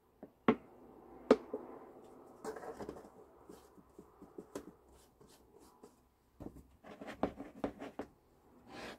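Hands handling kitchen items while making dough in a plastic bowl. Two sharp knocks come first, then a soft rustling pour with scattered ticks. About six seconds in there is a quick run of clicks and taps, and a short hiss near the end.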